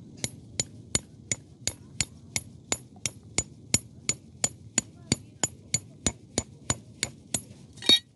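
Metal tent-peg hammer driving a guy-line peg into grassy ground: about three sharp, ringing metallic strikes a second, kept up steadily, with a louder, longer clank near the end. The peg goes in easily.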